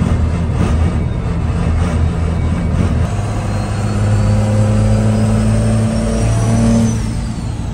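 First-generation Cummins 5.9 L inline-six turbodiesel heard from inside the cab. It pulls harder about three seconds in, its pitch climbing along with a thin, rising high whine, then eases off near the end.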